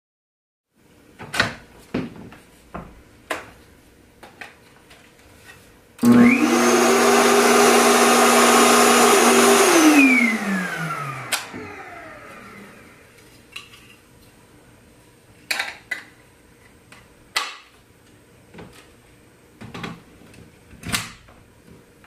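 Kenmore 81414 bagged canister vacuum cleaner switched on. Its motor spins up, runs steadily for about four seconds, then is switched off and winds down with falling pitch. Before and after, the plastic wand and hose handle click and knock as they are handled.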